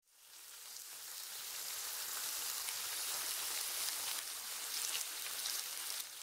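Pineapple pieces and flaked almonds frying in hot oil in a pan: a steady sizzling hiss with faint crackles, fading in over the first second or two.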